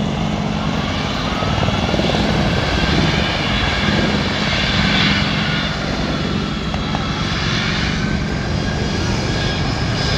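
Turbofan jet engines of a US Air Force C-17 Globemaster III transport moving on the ground, a loud steady jet rush with whining tones that drift slowly in pitch, a little louder about halfway through.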